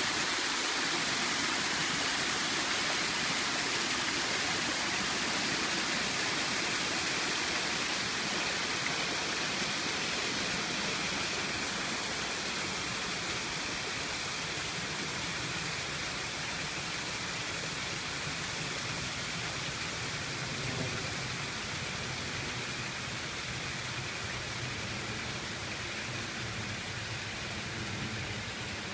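Water spilling through a wooden canal lock gate and splashing into the stone lock chamber: a steady rushing, a little fainter in the second half.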